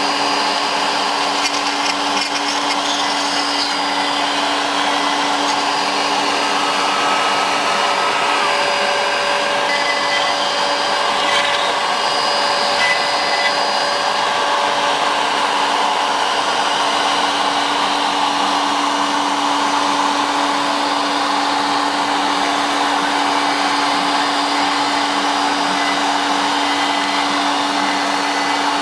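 CNC Shark HD Pro router running steadily, its spindle giving a constant whine with a few fainter tones shifting as it works.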